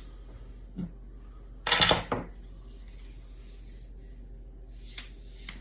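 Handling a telescoping extension rod: a loud rattling clatter about two seconds in, with a soft knock before it and two light clicks near the end.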